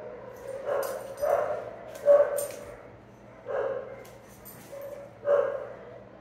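A dog giving five short yipping barks, spread unevenly over a few seconds.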